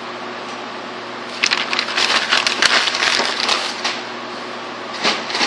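A run of crackling, crinkling handling noise lasting about two and a half seconds, starting about a second and a half in, then two short clicks near the end. A steady hum sits underneath.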